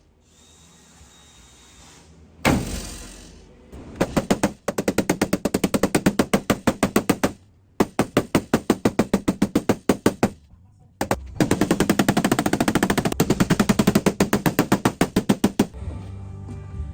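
Rapid tapping on the dented sheet metal of a truck panel, in three long fast runs of strikes with short pauses between, after a single knock. This is the tap-down and blending stage of paintless dent repair, knocking down high spots to level the panel.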